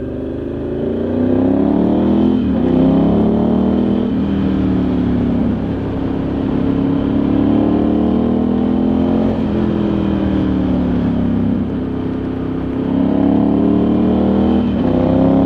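Ducati Multistrada 1100S's air-cooled L-twin engine pulling under acceleration, its pitch climbing and then dropping sharply at gear changes several times, with stretches of easing off in between.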